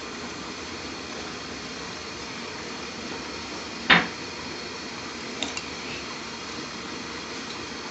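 Steady low kitchen background hiss, with one sharp metallic knock on a cooking pot about four seconds in and two faint ticks a second and a half later.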